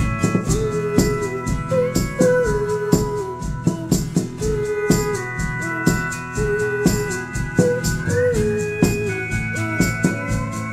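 Small folk band playing: a pedal steel guitar carries a sliding melody over acoustic guitar chords, with an even maraca-and-drum beat.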